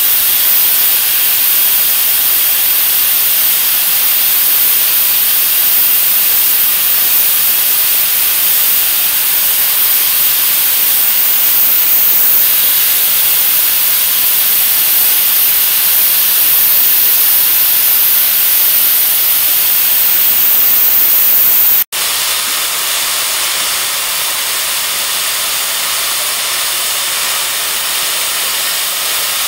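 Steam locomotive, a Terrier 0-6-0 tank engine, blowing off steam at its safety valves while standing: a loud, steady hiss. It breaks off for an instant about two-thirds of the way through, then goes on slightly quieter.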